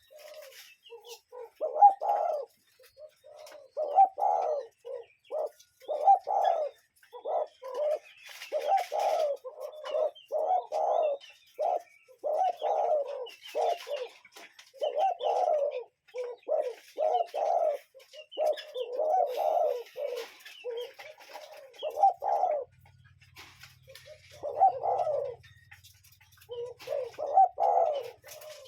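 A bird calling over and over in low cooing notes, phrase after phrase with hardly a break, pausing briefly about 23 seconds in before it starts again. Faint, higher chirps from other birds sound behind it.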